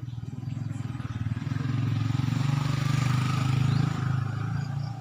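A motorcycle engine passing by, rapidly pulsing, growing louder to a peak near the end and then fading.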